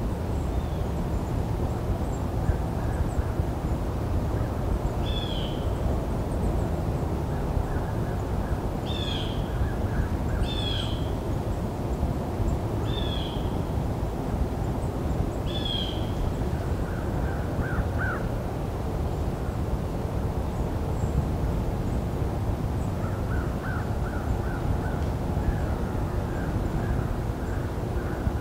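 Woodland ambience: a bird gives about six harsh, falling calls, a few seconds apart, in the first half, over a steady low rush of background noise. Near the end comes a quick run of short, lower chips.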